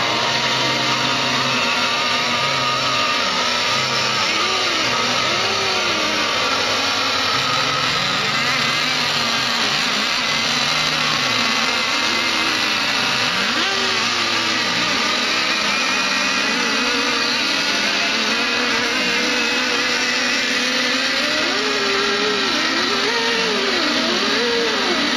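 Several small radio-controlled model boat engines running together, their pitch sweeping up and down as they are revved.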